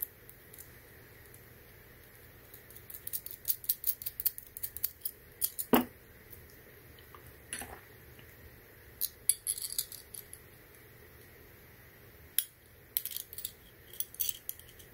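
Small metallic clicks and clinks from steel 858D hot-air rework nozzles and their clamp screws and nuts being handled and fitted together by hand. They come in clusters of quick ticks, with one sharper knock a little before halfway.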